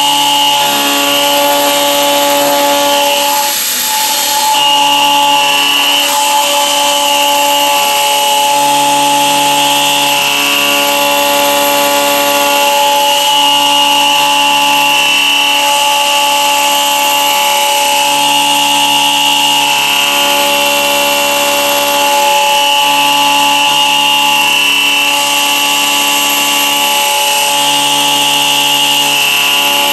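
Novakon CNC mill cutting an aluminium block with an end mill: steady spindle whine and cutting noise. A lower hum switches on and off every second or two as the machine moves through the cut.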